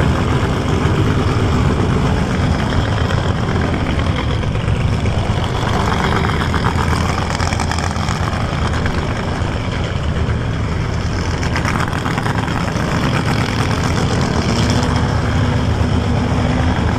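A car engine running steadily with a dense low rumble.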